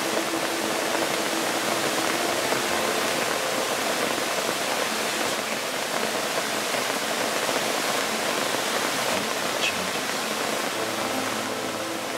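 Rain pouring steadily, an even hiss with no break.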